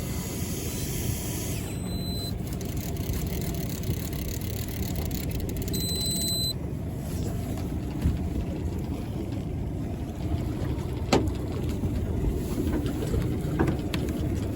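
Fishing boat's engine running with a steady low rumble, with a few sharp knocks about halfway and near the end.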